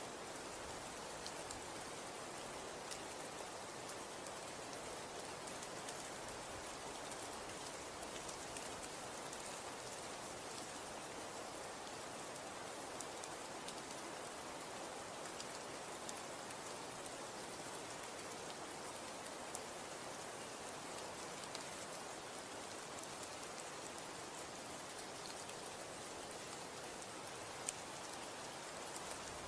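Snow falling: a steady soft hiss with many small ticks scattered through it as flakes land on surfaces.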